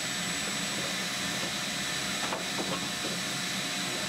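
Vacuum cleaner running steadily with a high whine, with a few light metal knocks a little past the middle as a metal plate is worked out of the pellet stove.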